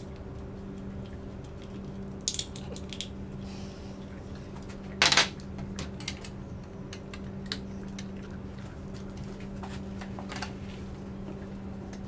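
Scattered metal clicks and clinks from a scooter bar clamp being loosened and the bars handled, with one louder clank about five seconds in. A steady low hum lies underneath.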